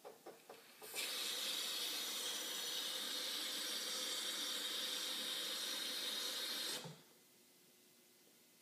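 A few short knocks, then a bathtub faucet runs a thin stream of water steadily for about six seconds and is shut off.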